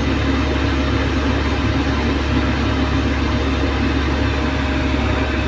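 Komatsu hydraulic excavator's diesel engine running steadily: a constant low drone with a thin, steady whine above it.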